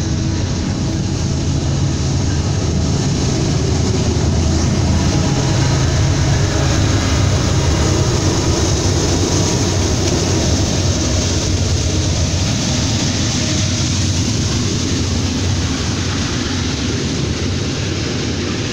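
CSX coal train going by: its diesel locomotives pass with a heavy, steady engine rumble and wheel noise, followed by loaded coal hoppers rolling along the rails. The sound swells to its loudest about a third of the way in and eases a little toward the end.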